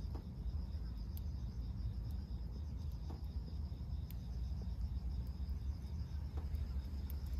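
Steady high-pitched insect trill, pulsing evenly, over a constant low rumble, with a few faint scattered ticks.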